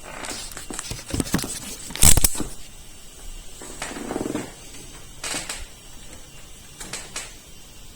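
A scatter of sharp clicks and knocks, the loudest a knock about two seconds in, with a brief low hum near the middle.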